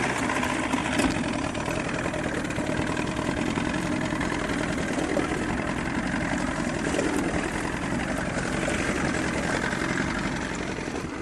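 A boat engine running steadily under power as the boat backs up, then easing off near the end.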